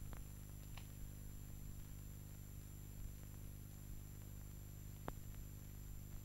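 Faint steady electrical hum and hiss, with a few soft clicks, the clearest about five seconds in.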